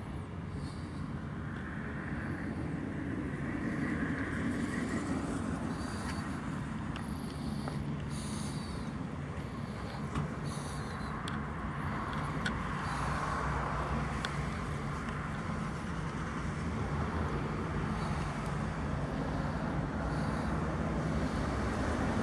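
A hot rod's V8 engine idling steadily.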